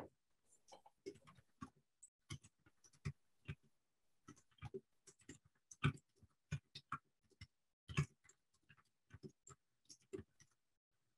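Typing on a computer keyboard: irregular keystroke clicks, several a second, which stop shortly before the end.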